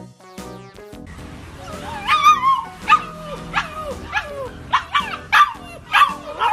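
A dog yipping and whining in a quick series of short, high calls that slide down in pitch, starting about two seconds in.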